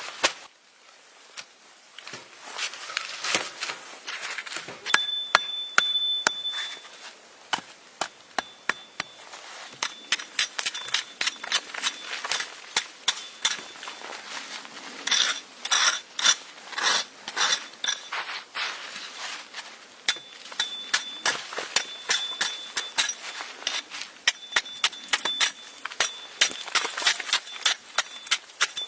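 Many sharp knocks and clicks in quick, uneven succession, crowding together in the middle. A thin high whistle-like tone sounds briefly about five seconds in.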